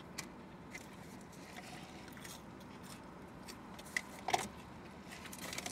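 Low steady hum inside a car cabin, with scattered small clicks and rustles as a paper food wrapper and a drink cup are handled; a short sharp clatter comes a little after four seconds in.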